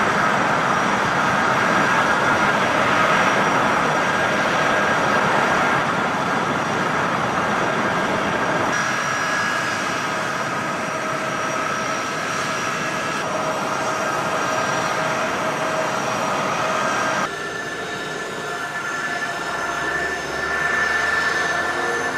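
Jet aircraft engines running with a steady roar and high whine. The sound changes abruptly several times, and a low rumble joins near the end.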